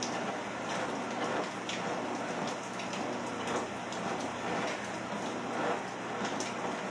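Steady hiss of rain with a treadmill running underneath, footfalls on the belt thudding at a regular pace about once a second.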